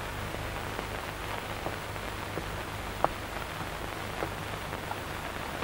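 Steady hiss with a low hum underneath and a few faint ticks, the film soundtrack's background noise.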